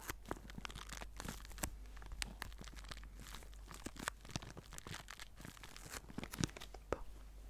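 A clear plastic bag stuffed with crumpled paper being squeezed and kneaded by hand, giving a dense run of irregular crinkles and crackles.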